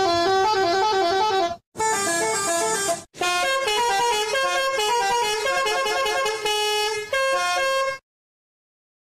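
Multi-tone musical horn on a decorated odong-odong tourist vehicle playing a fast melody of stepped notes, breaking off twice briefly and stopping abruptly about eight seconds in.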